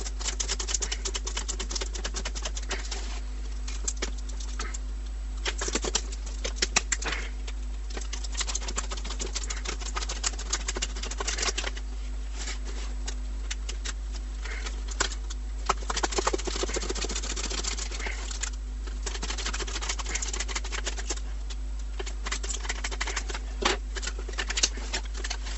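Packaging being handled and opened: plastic and cardboard crinkling, rustling and clicking in quick irregular bursts. A steady low hum runs underneath.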